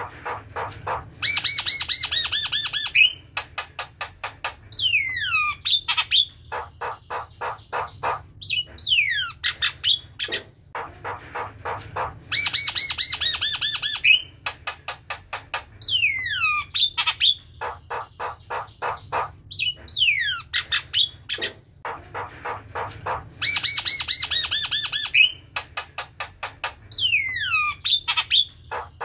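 Javan myna singing and chattering: runs of rapid harsh notes, falling slurred whistles and fast clicking rattles. The same sequence of calls comes around again about every eleven seconds.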